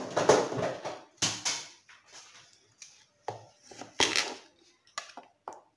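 A string of short knocks and clatters of dishes and kitchen utensils being handled on a counter, about six in all, the loudest about four seconds in.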